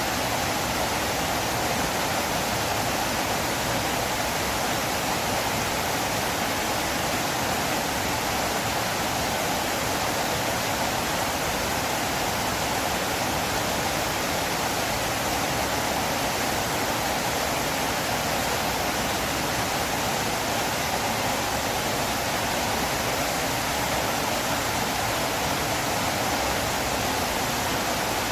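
Flowing river water rushing steadily, an even unchanging hiss.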